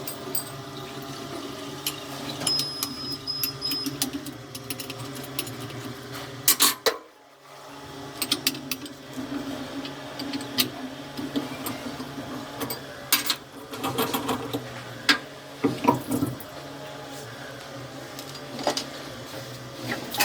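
4-axis CNC grinding machine sharpening a high-speed-steel saw blade: a steady machine hum with coolant splashing and frequent sharp clicks and ticks. The sound drops out briefly about seven seconds in.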